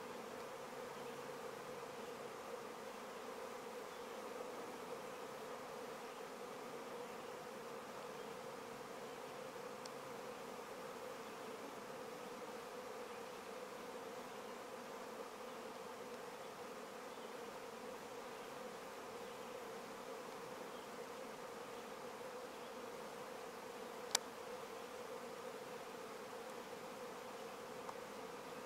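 A large swarm of flying insects buzzing overhead, which the uploader thinks may be wasps. The buzz is a steady, even hum with no breaks. Late on there is a single sharp click.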